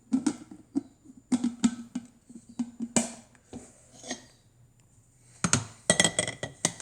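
Parts of a Cuisinart drip coffee maker being handled and set in place: a series of light clicks and knocks, with a quick flurry of them near the end.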